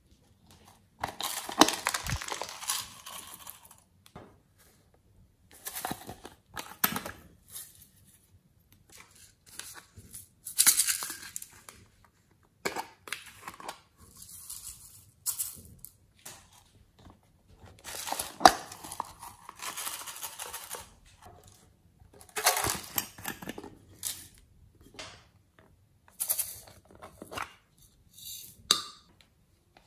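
Small plastic jars of glitter and sequins being handled, shaken and sprinkled out onto slime: rattling, crinkling bursts a second or two long, a few seconds apart, with sharp clicks of the jars in between.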